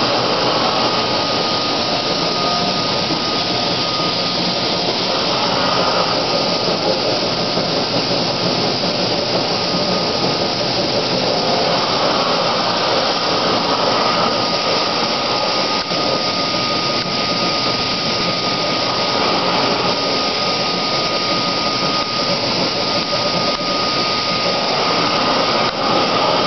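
Large vertical lathe turning a big stainless steel cylinder: loud, steady machine noise, with a thin high whine that drops out and comes back several times.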